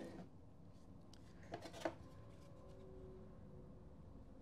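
Quiet room tone with two faint light knocks about a second and a half in, from wooden kitchen drawers in a travel trailer being handled.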